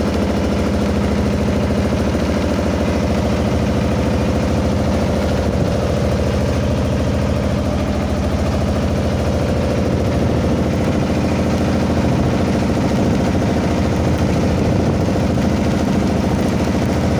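Fishing boat's engine running steadily with an even, rapid beat.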